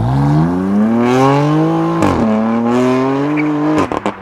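BMW M4's S55 twin-turbo straight-six, run through a cat-less downpipe, accelerating hard as the car pulls away. The pitch climbs, drops at an upshift about two seconds in, and climbs again, then a few sharp pops and cracks sound near the end as the car moves off into the distance.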